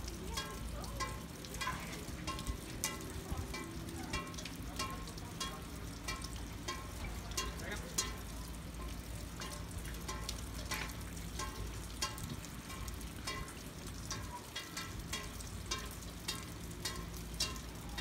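Steady monsoon rain with many sharp, irregular drip ticks close by, over a low rumble.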